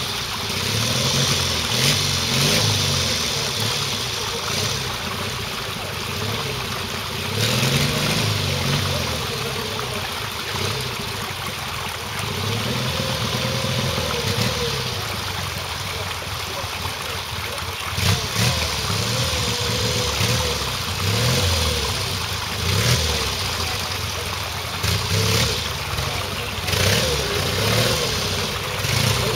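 Pre-1965 trials motorcycle engines idling and revving up and dropping back again and again as riders work through a trials section.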